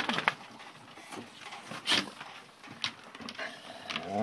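Black Great Dane puppies scuffling on a wooden deck: scattered knocks and scrapes, with a quick run of clicks at the start and the loudest knock about two seconds in.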